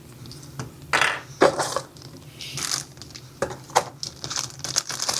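Small plastic tweeter mounting parts being handled: a few sharp clicks and knocks, with short bits of rustling.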